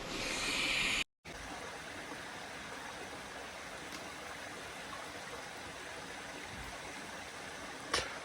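Steady rush of a creek flowing close by. In the first second a louder hiss breaks off suddenly, and a single sharp click comes near the end.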